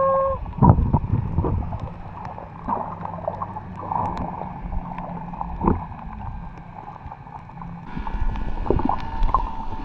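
Muffled underwater sound from a camera held just below the surface while snorkelling: water sloshing and gurgling with scattered knocks, over a steady low drone. A short steady tone sounds in the first half-second, and the water noise grows louder and brighter near the end.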